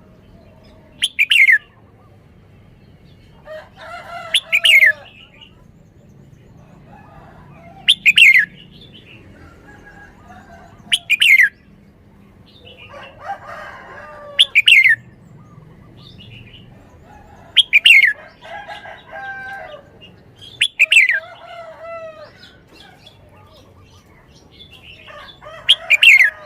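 Red-whiskered bulbul singing: loud, short whistled phrases repeated about every three seconds, with softer warbling chatter between them.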